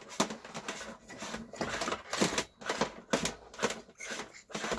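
Irregular scraping and clicking of a piece of wire being threaded through a hole drilled in a diesel heater's fuel tank, with handling knocks of the tank.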